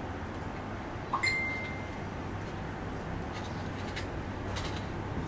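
A single sharp metallic clink about a second in that rings briefly at one high pitch. Faint light scraping ticks follow as a Campagnolo Super Record bottom bracket cup is threaded by hand into the frame's Italian-threaded shell. A steady low hum runs underneath.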